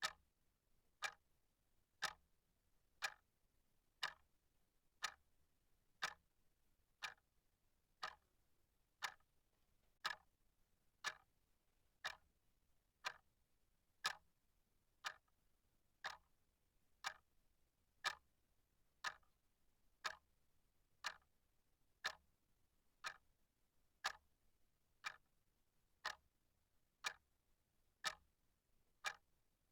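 Clock ticking steadily, with sharp, evenly spaced ticks about two a second.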